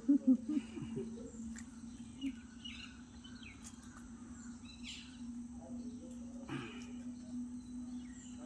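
Outdoor ambience with scattered faint bird chirps over a steady low hum. A few short, loud sounds come in the first half second, and a brief noisy rustle comes about six and a half seconds in.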